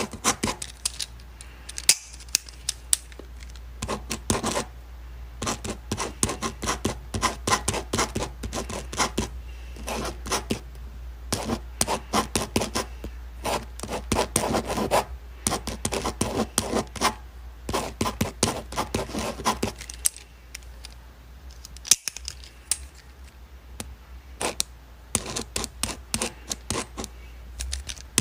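Pen writing on paper: runs of quick scratching strokes with short pauses between them, over a low steady hum.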